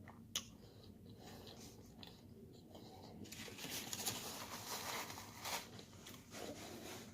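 A person chewing food close to the microphone, with faint crunching. A soft click comes early, and the chewing grows louder in the middle.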